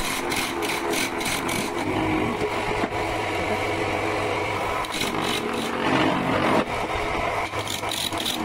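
Electric wood lathe running steadily while a hand-held chisel cuts grooves into the spinning wooden workpiece. Bursts of scraping come as the tool bites, loudest about six seconds in.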